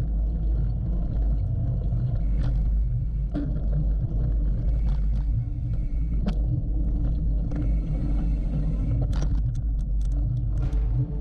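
Hardtail mountain bike ridden fast over a dirt trail, heard through a GoPro: a heavy, steady wind rumble on the microphone with tyre noise and scattered sharp clicks and rattles from the bike over bumps and roots, thickest near the end.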